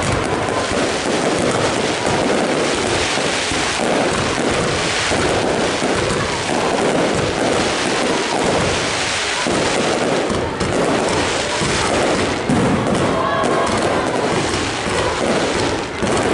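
Fireworks display in a dense, continuous barrage, with bursts and crackles overlapping one another without a break.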